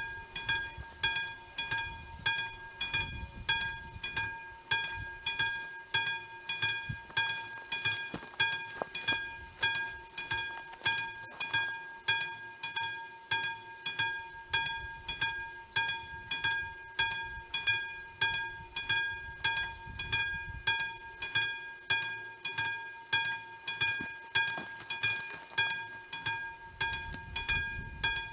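Warning bell of an AŽD71 level crossing signal ringing in even strokes, about two a second, each ding dying away. It is the warning that a train is approaching and the crossing is closed.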